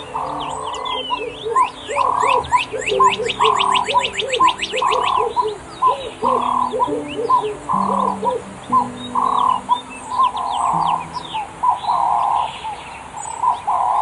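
Several birds chirping and calling, with a fast trill of rising notes a couple of seconds in and a lower call repeating about once a second, over soft ambient music with long held low notes.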